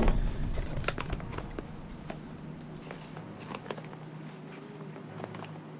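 A small cardboard product box being handled and opened by hand: a knock right at the start, then scattered light taps, scrapes and rustles of the packaging.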